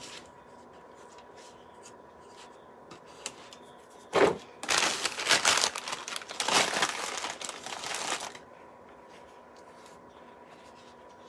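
Paper towel crinkling and crumpling in the hands for about four seconds, starting with a sharp rustle, as it is used to wipe frosting-like craft mix off the fingers.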